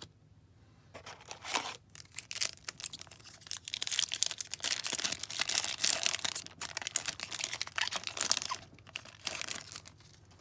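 Foil trading-card pack being torn open, its wrapper crinkling and crackling. The crackling starts about a second in, is loudest in the middle and dies away near the end.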